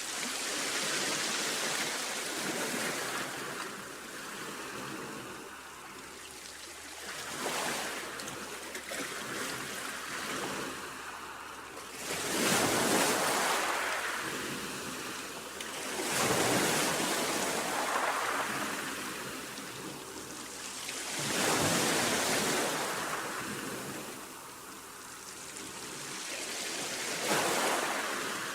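Sea waves breaking and washing back, a rushing surf noise that swells and fades every four to five seconds, the three biggest waves coming in the middle.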